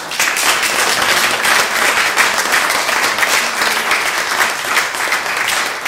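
Audience applauding: many hands clapping at once in a dense, steady patter.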